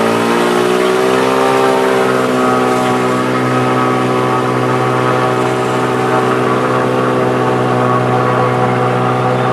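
Lake Renegade 250 amphibian's Lycoming six-cylinder pusher engine and propeller at takeoff power, heard inside the cabin during a water takeoff run. It is a loud, steady drone whose pitch climbs over the first second or two and then holds.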